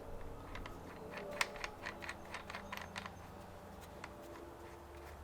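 Irregular light clicks and ticks of small metal fittings being handled and threaded together: a 15 mm to 14 mm adapter being screwed onto a pressure washer gun.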